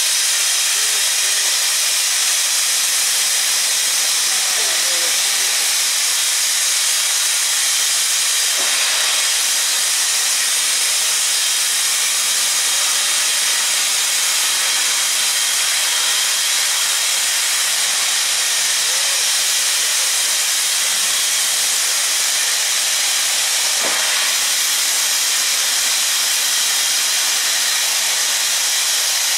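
LMS Black 5 steam locomotive 44806 hissing steam loudly and steadily as it starts away with its train.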